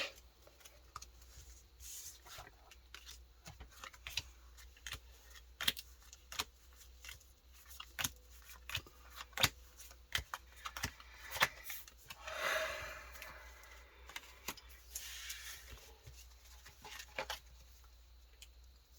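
Pokémon trading cards being handled: a run of soft clicks and slides as cards are flipped through, with two brief rustles about two-thirds of the way in.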